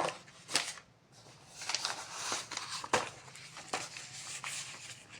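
Household objects being handled: a few sharp knocks and clicks, with rustling in between.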